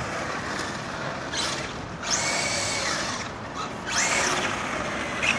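Traxxas XO-1 radio-controlled car's brushless electric motor whining in three short bursts of acceleration, the middle one the longest.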